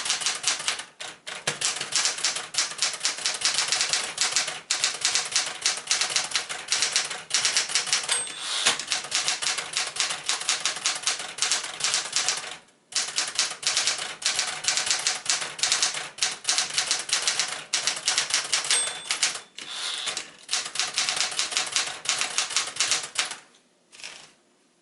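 Smith-Corona Galaxie Twelve manual typewriter being typed on briskly, a rapid stream of keystrokes with brief pauses. A short ring sounds twice, and the typing stops near the end.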